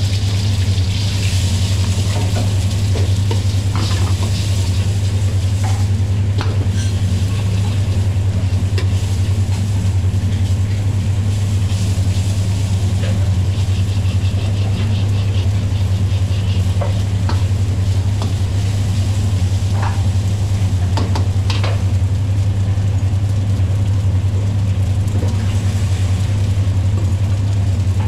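Egg and rice sizzling in a wok as they are stir-fried, with a metal wok ladle scraping and clacking against the pan now and then. Underneath is a loud, steady low hum.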